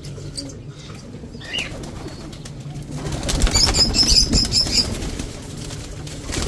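Domestic pigeons flapping their wings, with a louder flurry of wingbeats about three seconds in and a quick run of high chirps over it.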